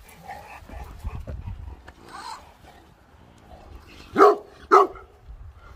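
A dog barks twice, two short loud barks about half a second apart, near the end.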